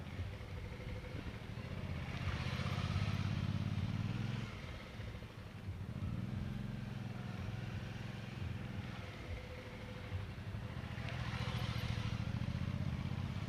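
Suzuki V-Strom's V-twin engine running at low revs through slow full-lock turns, growing louder twice as the bike swings close by.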